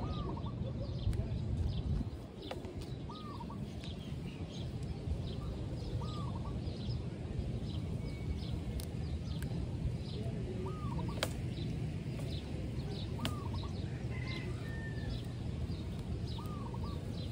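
Birds calling: one short rising-and-falling call repeated about every three seconds, with fainter high chirps scattered between, over a steady low rumble.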